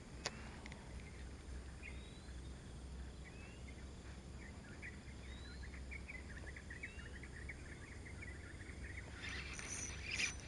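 Faint birdsong: a few short rising whistles and a run of quick chirps, over a low steady hum, with a single sharp click just after the start.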